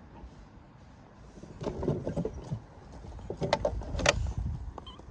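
Miniature ride-on railway flatcar rolling slowly along the track. A low rumble sets in about a second and a half in, with a series of sharp clicks and clanks from the wheels and the coupler. The loudest clanks come near four seconds.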